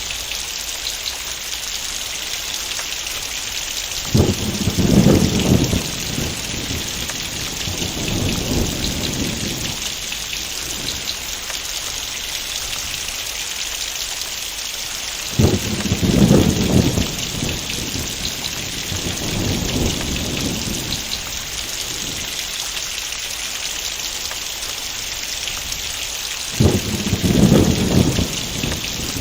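Heavy rain falling steadily, with three rolls of thunder about eleven seconds apart; each starts suddenly and rumbles for several seconds before dying away.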